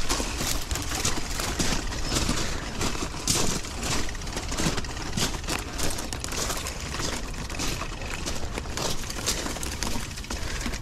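Mountain bike ridden over rough ground strewn with rocks and dry shrubs: tyres crunching, with many small cracks and clatters over a steady low rumble.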